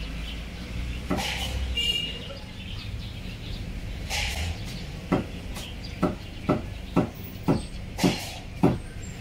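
Chinese cleaver chopping roast meat on a thick round wooden chopping block: seven sharp chops about two a second, starting about halfway through.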